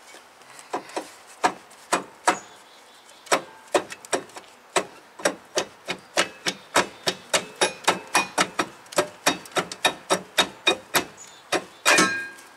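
Hammer tapping on a brake rotor to free it from over-tightened parking brake shoes: sharp metal knocks, scattered at first, then settling into about three a second, with a quick cluster of knocks near the end.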